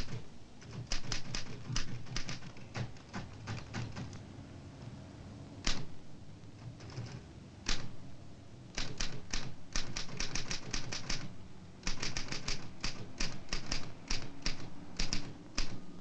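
Typewriter keys struck in quick runs of clacks, several a second, with short pauses between the runs.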